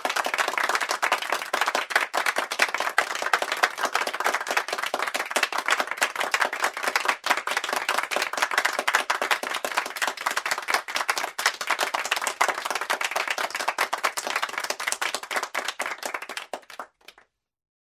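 A group of people clapping and applauding, a dense patter of many hand claps that starts abruptly, thins out and stops about a second before the end.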